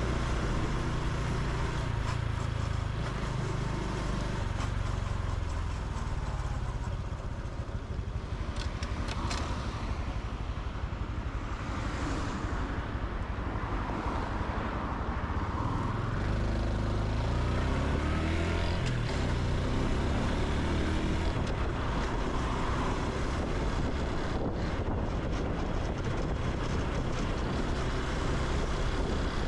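Honda Super Cub C125's single-cylinder four-stroke engine and exhaust running under way, its pitch rising and falling a few times as the bike speeds up and slows, over steady road and air noise.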